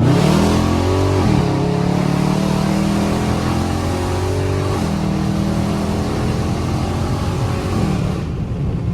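A Dodge Charger Scat Pack's 392 HEMI V8 exhausts through catless mid pipes under hard acceleration, loud and raspy. The pitch climbs, then drops sharply at a gear change about a second and a half in, and shifts again around five seconds and near the end.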